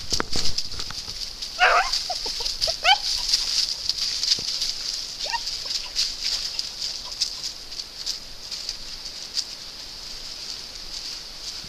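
Hound puppies give a quick run of short, high yelps about two seconds in and one more around five seconds, while they worry a wild boar skin in dry leaf litter. Scattered rustling and light clicks come from paws and the skin on the leaves, over a steady high-pitched hiss.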